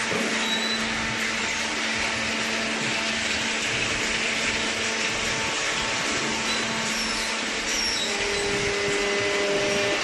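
Steady machinery noise from a waste-paper baling plant at work: an even hiss with a low hum under it, and a second steady tone joining about eight seconds in.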